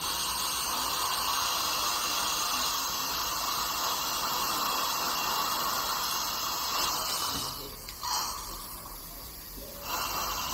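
Dental handpiece running with a steady hiss of water spray. It drops away about seven seconds in and starts again near the end.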